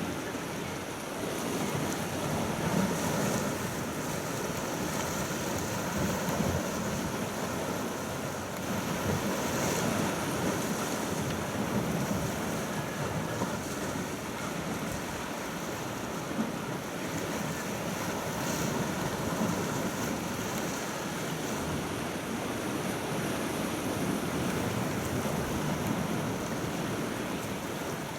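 Calm sea water washing and lapping steadily, with wind buffeting the microphone.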